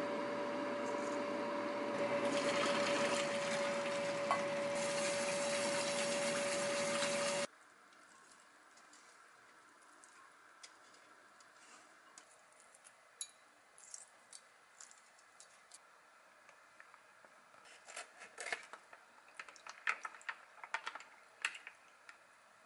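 Water from a kitchen tap running steadily, then cutting off abruptly about seven seconds in. After that it is quiet apart from light clicks and taps of a metal strainer and a glass bowl being handled, most of them near the end.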